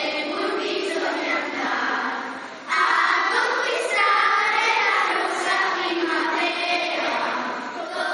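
Children's choir singing together. The singing fades briefly and comes back in abruptly just under three seconds in.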